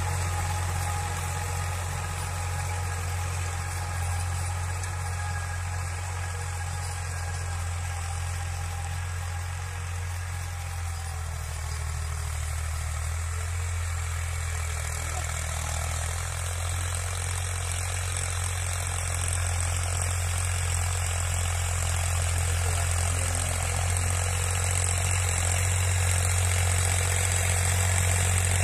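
Case JX55 tractor's diesel engine running steadily under load, pulling a rotary tiller through the soil. It grows gradually louder through the second half as the tractor comes closer.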